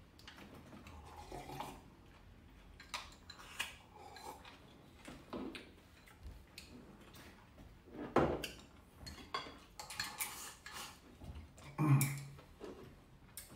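Chopsticks and rice bowls clinking and tapping at a meal table: scattered light clicks, with a couple of louder clinks about eight and twelve seconds in.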